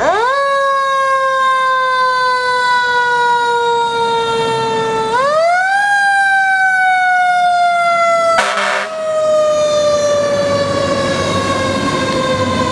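Fire engine siren winding up quickly, then slowly falling in pitch as it coasts down. About five seconds in it winds up again and coasts down again. About eight and a half seconds in, a short horn blast sounds over it, the truck giving a toot.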